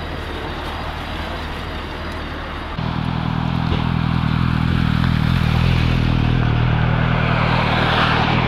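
A motorcycle engine starts up close by about three seconds in and then idles steadily, over the lower hum of other engines already running.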